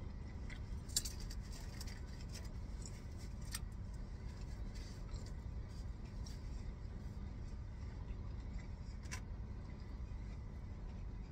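Someone eating a burger: small crackles and clicks of chewing and handling the food and its wrapper, with a sharp click about a second in, over a steady low rumble.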